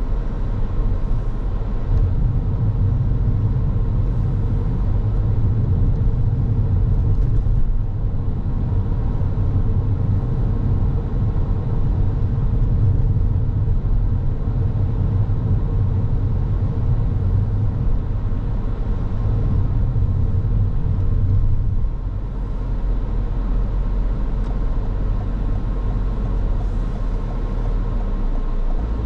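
Car driving along a road: a steady low rumble of tyres on the road and the engine, with a faint steady hum over it.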